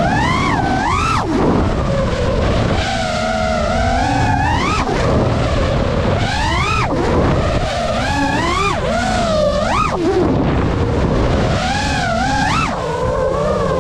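FPV racing-quadcopter motors buzzing, their pitch swooping up and down again and again as the throttle is opened and eased, over a low rumble of wind and prop wash.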